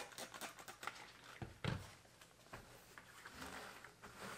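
Trigger spray bottle squirting cleaner onto a stainless steel range hood several times in quick succession, with a knock about a second and a half in, then soft rubbing as a gloved hand wipes the hood.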